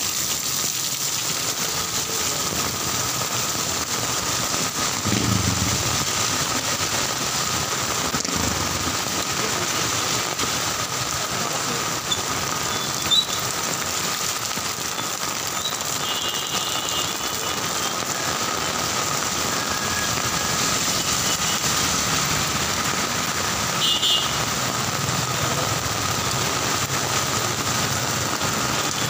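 Heavy rain pouring down on a street as steady noise, with traffic engines passing on the wet road. A single sharp knock about 13 seconds in.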